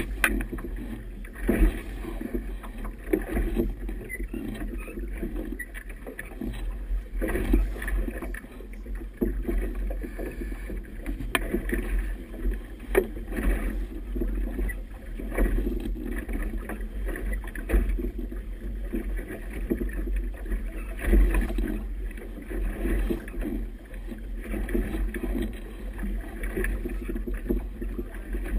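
Wind buffeting the microphone of a camera mounted low on a boat, a heavy rumble that rises and falls in gusts, with choppy river waves slapping and splashing against the hull.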